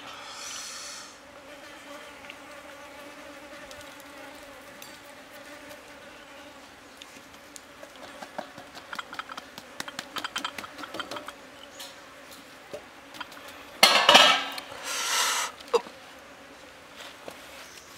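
A flying insect buzzing steadily close by, with small clicks and taps as salt is sprinkled from a cup and rubbed over a whole raw fish by hand. There are two louder scraping, rustling noises about 14 and 15 seconds in.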